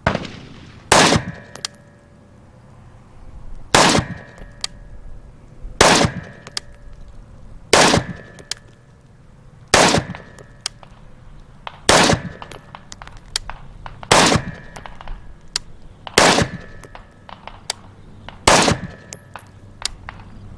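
AR-15 rifle firing 5.56 NATO rounds one at a time, about ten single shots roughly two seconds apart, each with a short ring after it.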